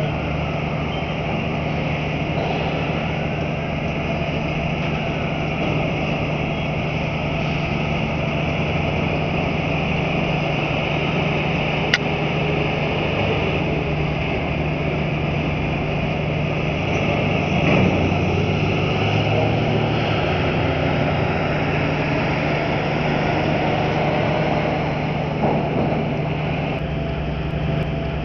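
Diesel engines of dock terminal tractors hauling semi-trailers off a roll-on/roll-off ship, a steady running drone. A single sharp click comes about twelve seconds in.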